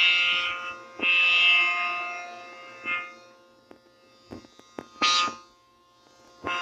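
Allertor 125 outdoor warning siren sounding a steady tone that swells loud and fades away several times, dipping almost to nothing twice in the second half.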